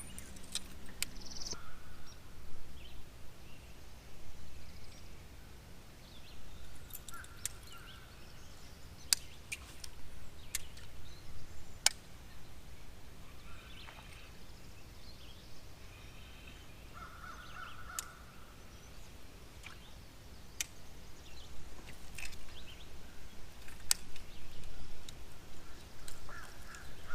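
Open-air quiet on the water: birds calling now and then over a steady low rumble, with a few sharp clicks scattered through.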